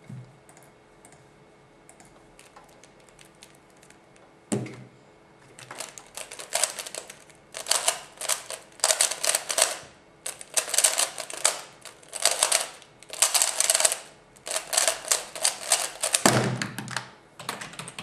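F-II 3x3 speedcube being turned fast during a timed speedsolve: dense plastic clicking in quick bursts for about ten seconds. A dull thump comes just before the turning starts and another as it stops.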